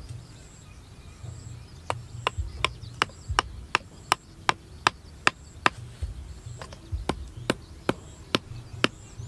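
A hammer pounding the tops of bamboo stakes to drive them into the ground: a run of sharp knocks, about two or three a second, starting about two seconds in.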